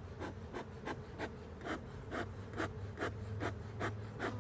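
Bee smoker bellows being puffed again and again, short breathy puffs about two a second, over the steady hum of honey bees around the open hive.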